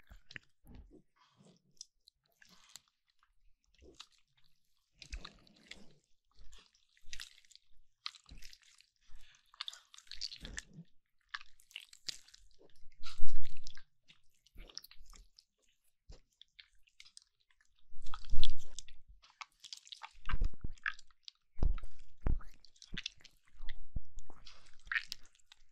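Slime being squished and stretched by hand close to the microphone: irregular sticky clicks, pops and squelches, sparse at first, with louder spells of squishing about halfway through and again from about two-thirds of the way in.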